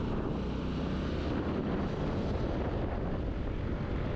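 Yamaha Aerox 155 scooter's single-cylinder engine running steadily while riding, with wind rushing over the microphone.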